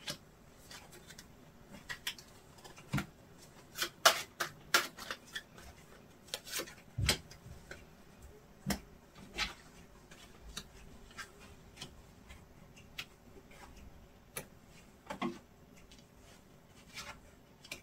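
Tarot and oracle cards being handled: shuffled in the hands and laid down on a cloth-covered table, giving scattered light clicks and taps with quiet gaps between them.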